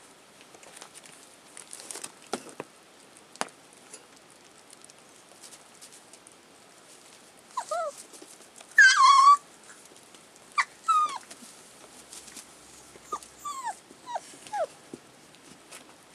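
Five-week-old collie puppies whimpering and yelping in high-pitched cries that fall in pitch. A few sharp taps come first. The loudest cry is a long wavering whine about halfway through, followed by several short yelps.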